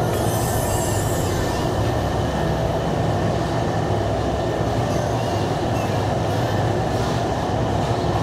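Steady mechanical rumble with a low, even hum, as from a motor or engine running without a break.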